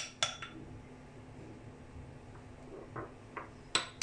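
Two sharp clicks with a short ring as the blender jug's lid is handled, then a spoon clinking against a ceramic bowl three times near the end, the last clink the loudest.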